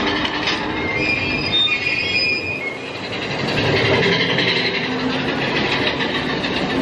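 Big Thunder Mountain Railroad mine-train coaster cars running along the track, wheels rumbling steadily, with high wheel squeal about a second in.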